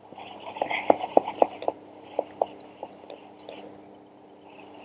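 Baitcasting reel being cranked to bring in a hooked fish, giving a run of light clicks about three or four a second that fade out after about three seconds.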